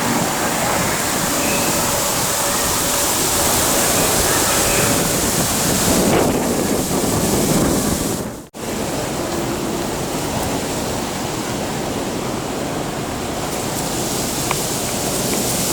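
Steady rushing outdoor street noise with wind on the microphone. It cuts out for an instant about eight seconds in, then carries on.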